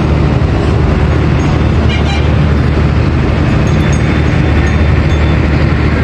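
Loud, steady low rumble of background noise with a faint short rustle about two seconds in.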